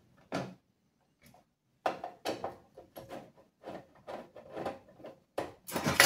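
Sheet-metal hard disk bracket being worked loose and pulled out of a steel desktop computer case: a run of short metal knocks and rattles, then one loud clang near the end that rings briefly.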